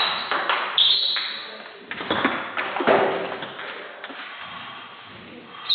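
Table tennis ball clicking sharply off the bats and table in a fast rally, with a brief high squeak about a second in. The clicks thin out after about three seconds as the rally ends, leaving a few lighter taps.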